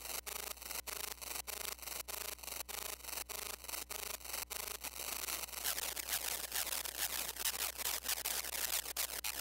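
Modular synthesizer playing rhythmic pulses of filtered noise, about three a second, over a steady low hum. A little over halfway through, the noise turns brighter and denser.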